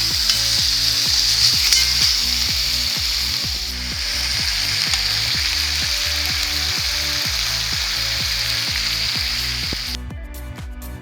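Chicken pieces sizzling loudly as they fry in butter in a kazan, with background music with a steady beat underneath. The sizzling cuts off about ten seconds in, leaving only the music.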